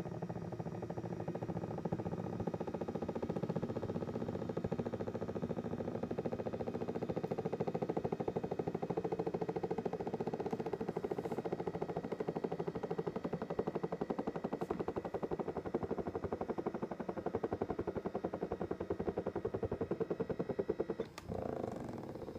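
Doctor Air 3D massage seat running, its motor and massage mechanism making a steady, fast, even pulsing with a hum: the abnormal noise (異音) the seat has developed. It breaks off briefly near the end, then starts again with a different sound.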